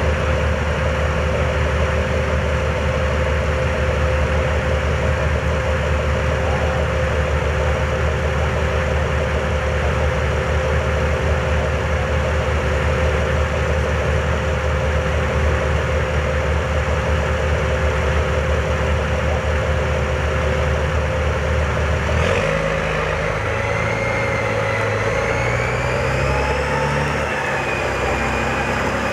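Engine of a CVR(T) tracked armoured vehicle running steadily close by. About three-quarters of the way through the engine note changes and a high whine rises and falls.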